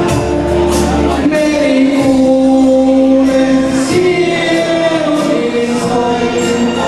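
A man singing a waltz into a microphone over a karaoke backing track, with long held notes.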